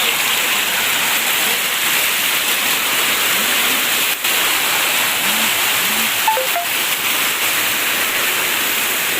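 Steady rush of flowing water, a loud even hiss with no break. A few faint short chirp-like sounds come through about halfway in.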